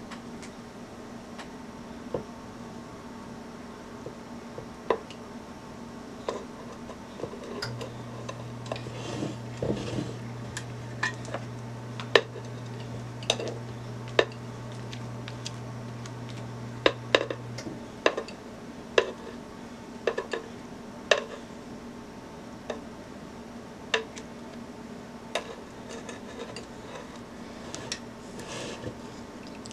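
A spatula scraping thick cake batter out of a mixing bowl into a Bundt pan, with irregular sharp clinks and knocks as it taps against the bowl.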